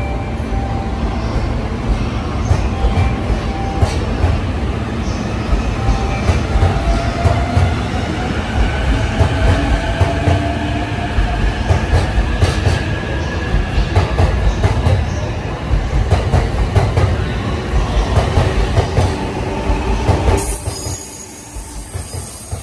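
JR E531 series electric multiple unit running past along the platform, with a steady low rumble, wheel clatter and squeal, and a faint whine that slowly rises in pitch as it gathers speed. The sound drops away sharply near the end.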